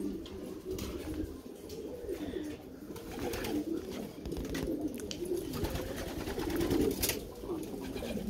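Domestic pigeons cooing, a low wavering coo repeated over and over.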